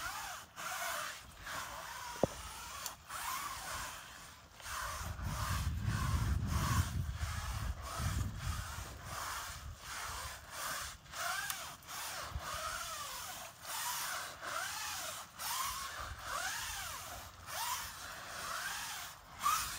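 Pure-water-fed cleaning brush scrubbing a window with rhythmic back-and-forth strokes, the wet bristles swishing and squeaking on the surface. A low rumble comes in partway through.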